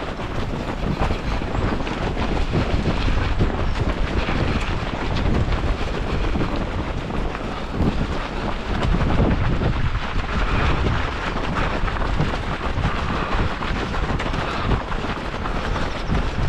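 Wind buffeting the microphone of a running action camera: a steady, loud, low rumbling noise.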